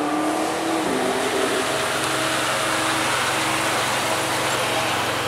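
Ferrari Maranello's front-mounted V12 idling as the car rolls slowly past close by. The engine note drops about a second in, then holds a low, steady idle.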